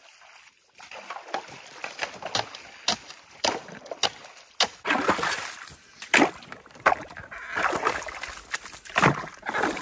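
Shovels digging in a shallow, icy creek: the blades scrape and knock, and slush and water are scooped out with repeated splashes about once a second.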